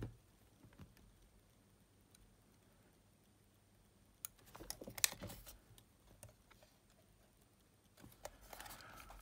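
Small clicks and handling noises from the opened Sony WM-EX900 cassette Walkman as its parts are turned in the hand and the tape-detection switch is probed with metal tweezers: a mostly quiet stretch, a cluster of clicks about four to five and a half seconds in, and a brief scraping rustle near the end.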